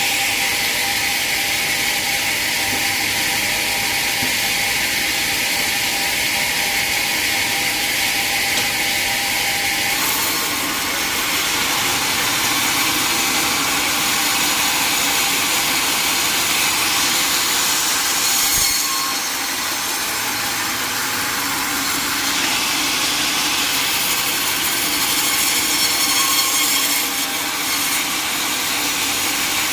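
Sawmill saw running and cutting teak wood: a loud, steady noise whose tone shifts at about ten seconds in and again a few times later as the cut goes on.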